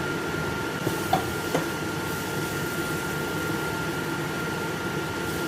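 Onions and tomatoes cooking in oil in a pan, under a steady fan-like hum with a thin high whine. Two small clicks come about a second and a second and a half in.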